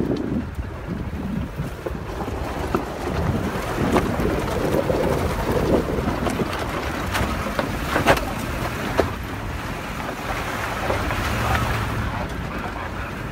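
Vehicle rumbling and jolting along a rough dirt trail, with wind buffeting the microphone. A couple of sharp knocks past the middle, the loudest about eight seconds in.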